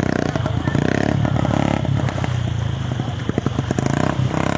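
Motorcycle engine running at a steady low pitch, with a crowd's voices mixed in.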